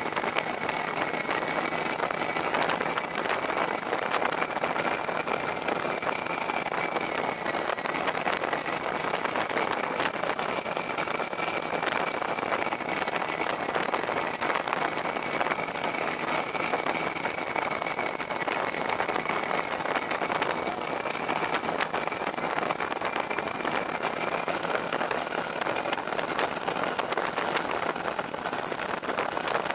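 Fox V4 ultralight aircraft's engine and propeller running steadily in cruise flight, a constant drone mixed with wind rush, with a thin steady whine above it.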